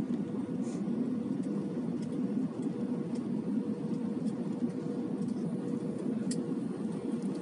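Steady cabin noise inside an Airbus A320 in flight: the even, low rumble of engine and airflow noise heard through the fuselage, with a faint steady hum above it.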